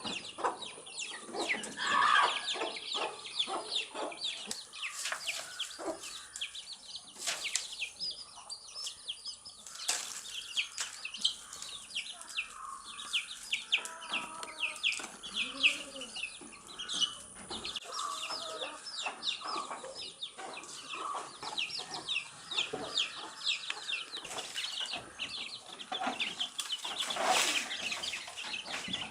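A group of baby chicks peeping: rapid, high-pitched chirps overlapping without pause, with a few lower calls and short sharp taps mixed in.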